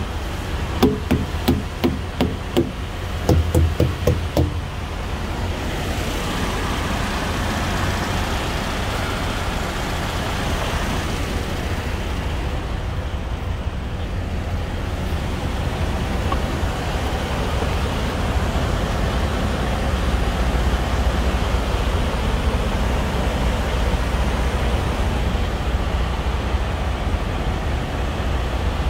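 A wooden tire thumper striking truck tires in a quick series of about a dozen knocks in the first few seconds, the usual check for a flat or low tire on a walk-around. After that, a steady low rumble of engine and road noise.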